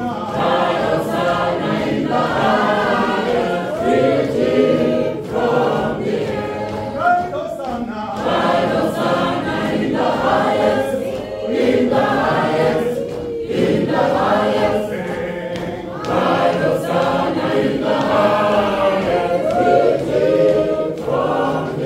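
Church choir of men's and women's voices singing a processional march hymn together, without a break.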